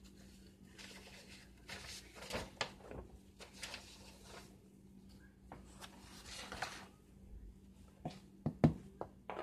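Kitchen handling sounds: scattered rustles and light clatters of bowls and utensils being moved on the counter, ending in a few sharper knocks as the bowl of flour mixture is handled. A faint steady hum runs underneath.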